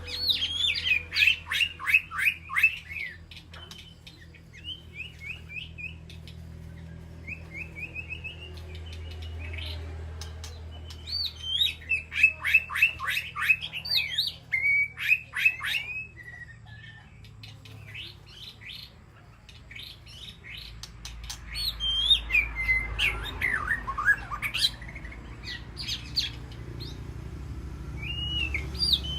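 White-rumped shama singing. It gives three loud bouts of rapid, repeated notes that sweep sharply down in pitch, with shorter, quieter whistled phrases between them. A steady low hum runs underneath.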